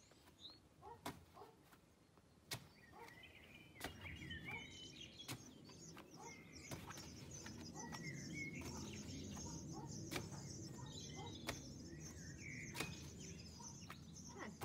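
A rugby ball slapping into the hands about every second and a half as it is spun up and caught, over birds chirping and a low steady outdoor background noise.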